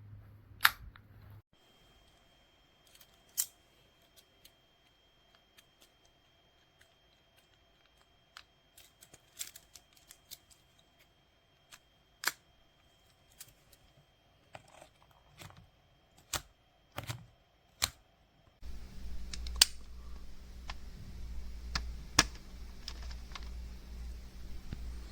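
Scattered sharp metallic clicks and snaps of a stainless steel keycap and switch puller being handled and used on a mechanical keyboard, at irregular intervals. A steady low hum comes in about three quarters of the way through.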